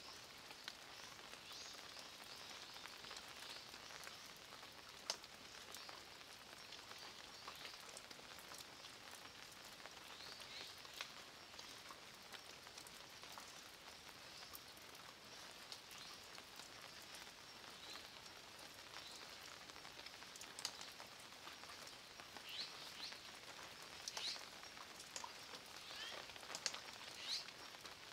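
Light, steady rain pattering on a stone wall and the leaves around it, with scattered louder single drop taps, more of them near the end.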